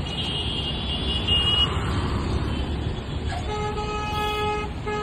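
Heavy truck and road traffic rumbling as a flatbed trailer hauls an aircraft fuselage. A high-pitched horn sounds for the first second and a half. A deeper vehicle horn honks in long blasts from about three and a half seconds in.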